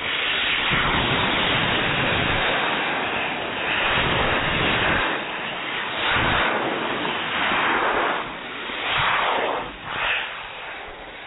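Clustered model rocket motors of a three-core Falcon Heavy model firing: a loud, continuous rushing hiss that comes in at ignition and swells several times before easing off near the end. The flight goes wrong and the model breaks up.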